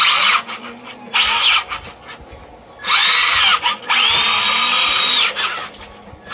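Traxxas Rustler's brushed electric motor and drivetrain whining in four throttle bursts, each rising in pitch and falling away, the last held for about a second. It comes with the grinding the owner hears whenever the truck is driven, a fault still present after a wood chip was removed from the driveshaft.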